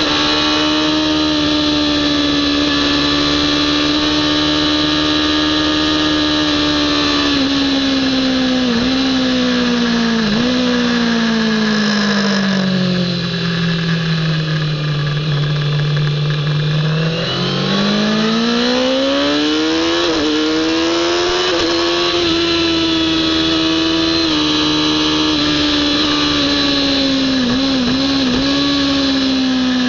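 Kawasaki ZX-10R's inline-four engine at high revs on track. The pitch steps down through two downshifts about eight and ten seconds in, sits low through a slow corner in the middle, then climbs steeply as the throttle opens and holds high, falling off near the end under braking.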